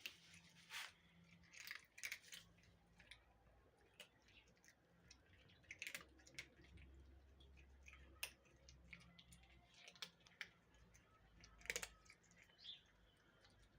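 Cats eating: faint, irregular crunches and clicks of food being chewed and picked from a dish.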